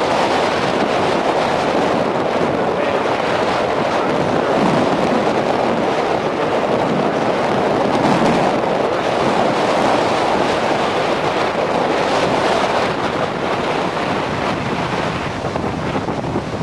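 Storm-driven ocean surf breaking and churning along the shore, with strong wind buffeting the microphone: a loud, steady wash of noise that swells and eases slightly.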